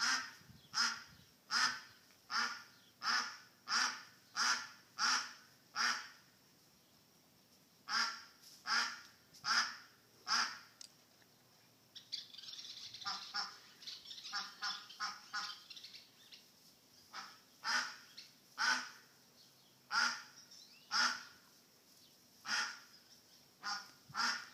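A hen duck quacking loudly and repeatedly, about one call a second, with a quicker, softer run of calls in the middle. The onlookers take this persistent calling as a sign that she has probably lost her duckling.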